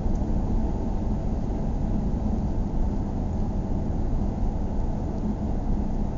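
Steady low rumble of a car driving at a constant speed, tyre and engine noise heard from inside the cabin, with a steady hum.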